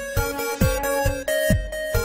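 Background music with a steady beat of deep drum hits, about two a second, under held synth-like notes.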